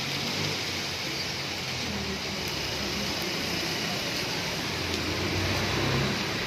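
Heavy rain falling steadily on a wet street, with traffic driving through the water. A jeepney's engine rumbles louder as it passes close by near the end.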